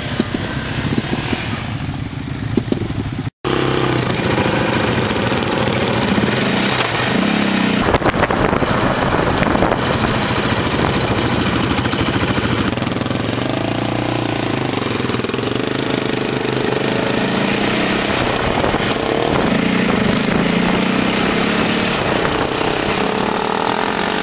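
Sport quad bike engines, first running at a standstill, then, after a brief break about three seconds in, a quad riding along with its engine revs rising and falling under a loud rush of wind on the microphone.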